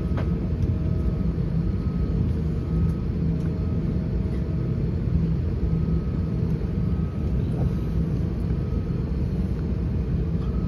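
Steady low rumble of cabin noise inside an Airbus A320-214 on the ground before takeoff, with faint thin tones coming and going above it.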